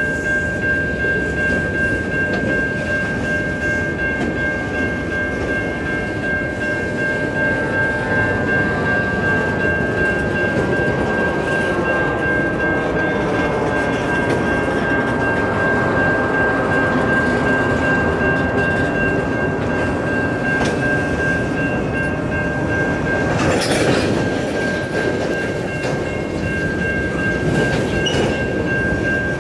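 A freight train of tank cars rolling past a grade crossing: a steady rumble and rattle of wheels on the rails, with the crossing's warning bell ringing as a constant high tone throughout. One sharp clank stands out about 24 seconds in.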